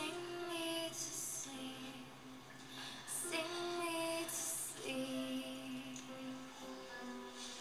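A soft female voice singing slow, held notes over quiet music, with audible breaths between phrases.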